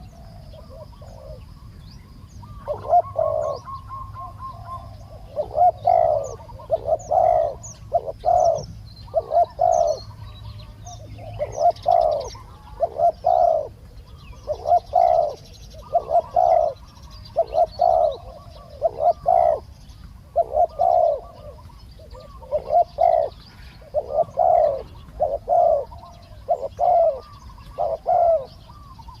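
Spotted doves cooing over and over, a phrase about every second, the calls of a decoy dove and a wild dove answering it. Faint high chirps of small birds sound behind them.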